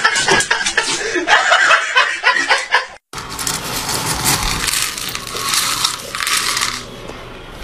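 A person's voice with laughter, cut off after about three seconds; then a small plastic cup scooping dry pet food kibble from a canister, the pellets rattling and pouring in two bursts.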